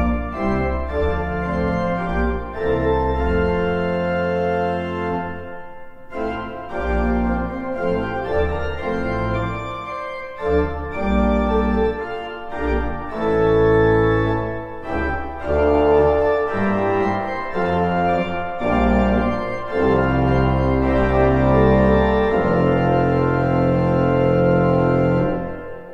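Organ playing a hymn tune in full chords over a bass line, phrase by phrase with brief breaks between phrases. It ends on a held final chord that dies away.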